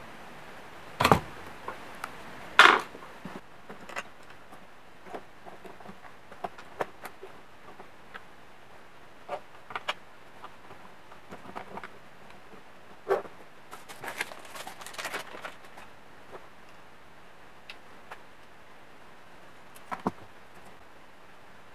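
Scattered small clicks, taps and knocks of a circuit board and hand tools being handled on a workbench, with a few sharper knocks among them.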